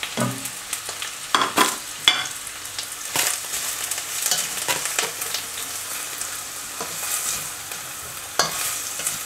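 Chopped onion and green chillies sizzling in hot oil in a wok while a spatula stirs them, scraping and knocking against the pan in irregular strokes over a steady sizzle. The onions are being lightly sautéed until soft.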